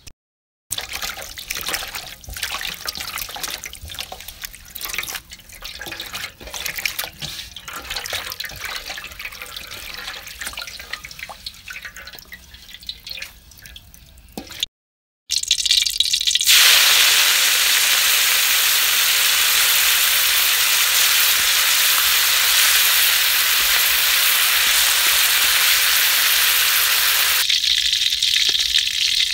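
Holy basil leaves rustling and snapping as they are plucked by hand into a woven basket. After a break, a steady rush of running water as the leaves are washed in a metal basin, which drops away near the end as the wet leaves are tipped into the basket.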